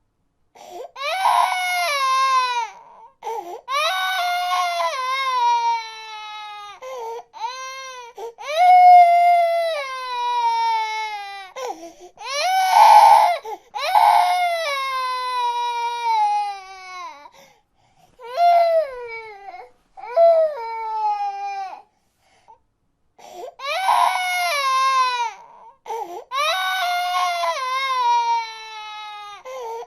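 A baby crying: a run of high-pitched cries, each falling in pitch, with short catches of breath between them and a brief pause about two-thirds of the way through.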